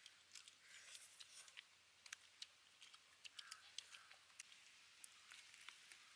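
Faint, irregular crackles and clicks of crispy deep-fried whole fish being broken apart by hand and eaten.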